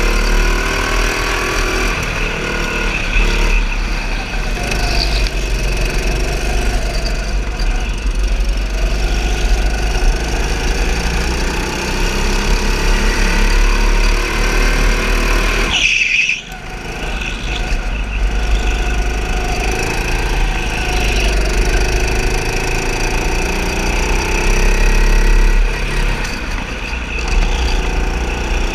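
Go-kart engine running on a lap, its pitch rising and falling with the throttle through the turns, with a brief dip in level about sixteen seconds in.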